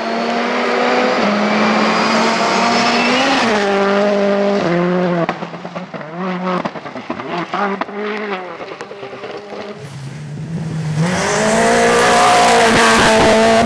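Rally cars at full throttle on a loose gravel stage, engines revving hard and dropping in pitch with each upshift, then lifting and stuttering in a quieter stretch. Near the end a car comes past louder, engine climbing, with gravel spraying from the sliding tyres.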